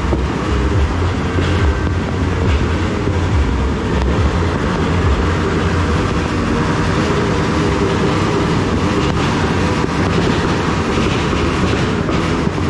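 Many firecrackers and fireworks going off across a town at once, merging into a steady loud rumble, with a few sharper cracks standing out.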